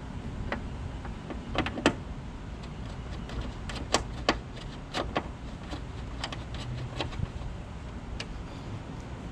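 Scattered sharp clicks and taps, irregularly spaced and loudest about two and four seconds in, from hand work on a car door's interior trim as a strap, its button and cover cap are fitted, over a low steady rumble.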